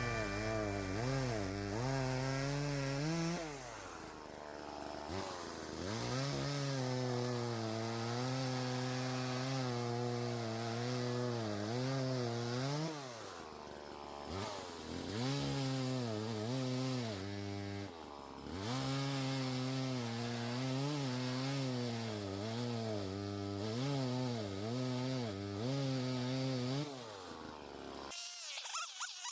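1976 Homelite Super 2 31cc two-stroke chainsaw running hard while cutting wood. It eases off and revs back up a few times between cuts, then cuts off abruptly near the end.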